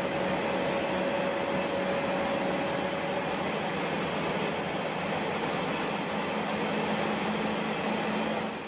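Cabin noise of a KiHa 32 diesel railcar under way: the engine and wheels make a steady running noise with a low steady hum. A higher tone fades out a few seconds in.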